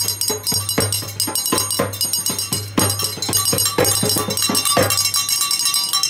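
Many people banging and clanging at once, a fast, irregular din of strikes with bell-like clanks among them, over a steady low hum.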